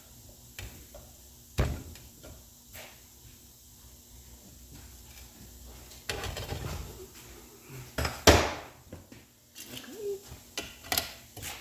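Scattered metallic clanks and knocks of tools and parts being handled, a few seconds apart, the loudest a sharp knock about eight seconds in.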